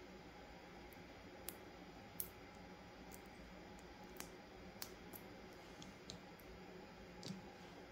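Faint, scattered small clicks of the steel gears and pins of an RC car's metal center differential being picked out by hand, against near silence.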